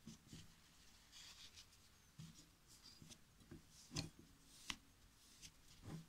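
Faint rubbing and scraping of a tissue or wet wipe on a graphics card's GPU chip and heatsink, wiping off the old, dried thermal paste. Light clicks and taps are scattered through it, the sharpest about four seconds in and near the end.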